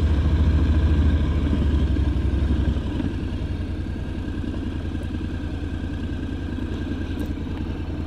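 Honda NC750X's parallel-twin engine running on the move, with an even, low firing pulse. It is louder for the first three seconds, then eases to a lower, steady level.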